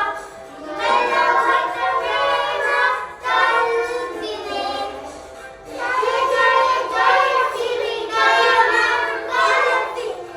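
A group of young children singing a Christmas song together, in phrases broken by short pauses.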